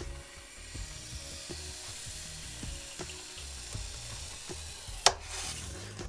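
Homemade hot-wire foam cutter with a Kanthal resistance wire melting its way through a styrofoam block, a steady hiss. A single sharp click about five seconds in, over soft background music.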